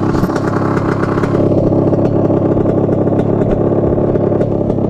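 Honda CR85 two-stroke single-cylinder dirt bike engine running at fairly steady revs.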